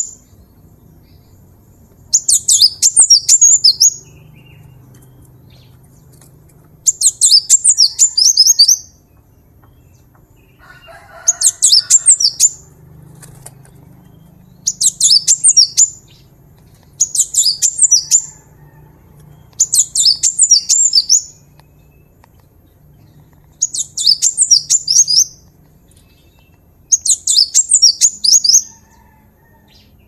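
Cinereous tit (gelatik batu) singing. About eight loud bursts of rapid high-pitched notes, each lasting about one and a half to two seconds, come every few seconds.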